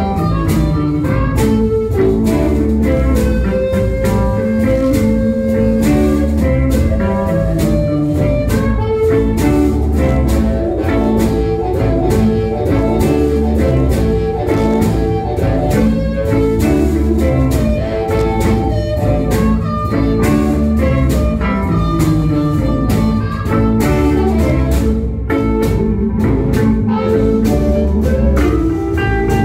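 Live blues band playing: acoustic and electric guitars over a cajón and snare drum groove, with a blues harmonica playing long held notes.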